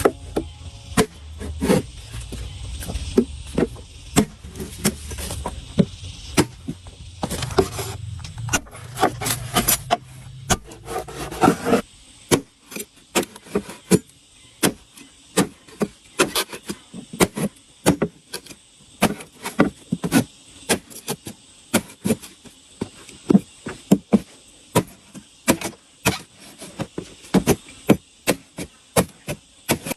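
Hand-tool construction work: a steady run of sharp knocks and taps, about two or three a second, over a low rumble that stops about twelve seconds in.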